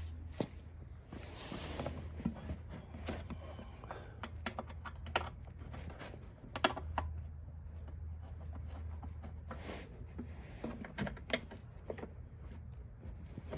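Scattered light clicks and knocks of hands fitting plastic and metal snowblower parts back together, irregular and of varying loudness, over a steady low hum.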